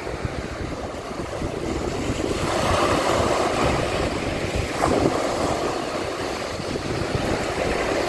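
Small sea waves breaking and washing up a sandy beach. The surf swells from about two seconds in and eases after about five, with wind gusting on the microphone underneath.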